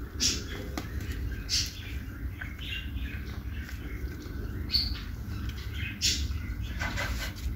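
Cats and kittens eating raw chicken off a plate: short, wet chewing and smacking sounds scattered through, with a few brief high chirps, over a steady low rumble.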